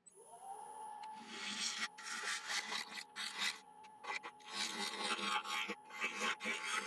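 Wood lathe motor spinning up with a steady whine, then a turning tool cutting across the face of a spinning laburnum bowl blank in repeated rough, uneven scrapes as the face is trued up, still taking off chainsaw marks.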